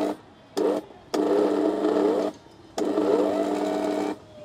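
Mixer grinder motor switched on and off by its knob, about four times: two short blips, then two runs of a second or more, its whine rising as it spins up each time. It is spinning a perforated aluminium cup fitted on top as a homemade cotton candy spinner head, in a test run that shows the head turns properly.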